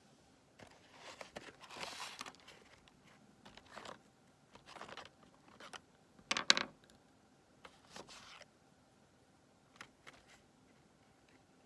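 Wax crayons being rummaged through and picked out of an open cardboard crayon box: rustling of the box and light clicks of crayons against each other and the wooden table, in short bursts. The sharpest clack comes about six and a half seconds in, and a few faint ticks follow near the end.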